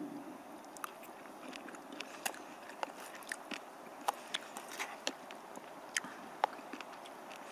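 Fork and knife clicking and scraping against a titanium pot while small sausages are cut up: an irregular run of sharp metallic clicks over a faint steady hiss.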